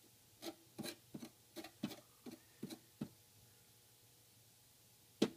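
Metal putty knife dabbing and scraping wood filler into a screw hole on a guitar's lacquered top: a quick run of about ten light clicks and scrapes over the first three seconds, then one louder click near the end.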